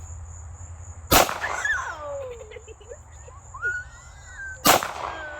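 Two 9mm pistol shots about three and a half seconds apart, each a sharp crack with a brief echo, over a steady high buzz of crickets.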